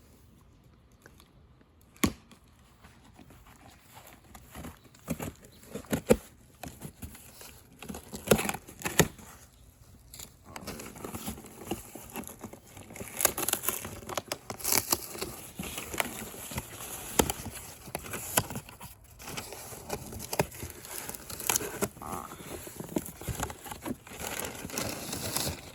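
Packaging being torn open and handled during an unboxing: tearing and crinkling in irregular bursts that grow busier about halfway through, with one sharp knock about two seconds in.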